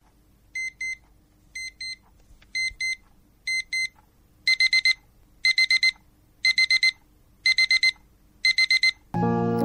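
Electronic alarm beeping in a high, even pitch: a pair of beeps about once a second, then from about four seconds in louder bursts of four beeps about once a second. Music comes in just before the end.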